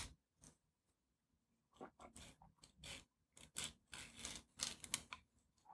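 Faint rubbing and scraping of fingers pressing and smoothing an adhesive waterproof cover patch onto the skin of an upper arm. The sounds are short and scattered, starting after a quiet second or two.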